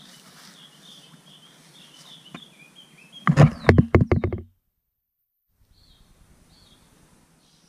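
A small hooked fish thrashing as it is swung out of the water: about three seconds in, a rapid run of a dozen or so loud slaps and knocks lasting just over a second, then an abrupt cut-off. Faint bird chirps before it.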